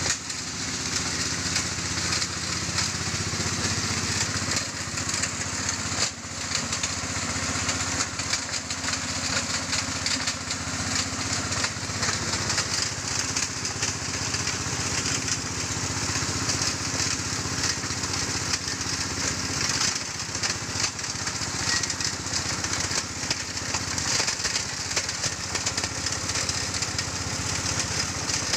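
Engine-driven stone grinding mill for gold ore running steadily: a steady engine drone under a dense, crackling grind of rock being crushed.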